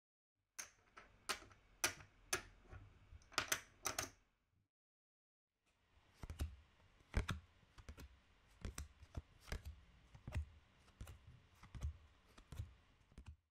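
Poker chips clicking against each other in irregular runs of sharp clicks, with a pause of about a second and a half partway through.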